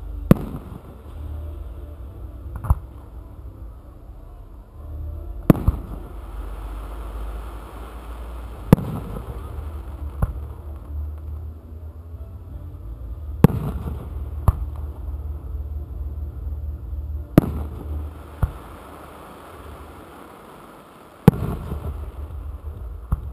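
Aerial firework shells going off one after another: a sharp, loud bang about every four seconds with fainter bangs in between, over a steady low rumble.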